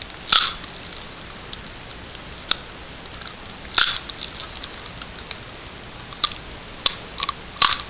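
Daiwa 1050K fishing reel being worked by hand: a handful of sharp mechanical clicks at irregular intervals, with fainter ticks between, as its clasp snaps over and works properly.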